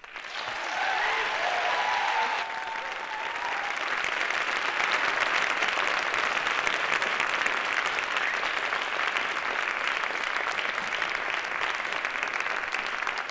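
Audience applauding, swelling quickly at the start and then holding steady.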